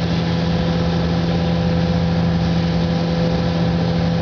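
Steady, loud machine hum with a strong low drone and an even hiss over it: paint booth equipment running while clear coat is sprayed.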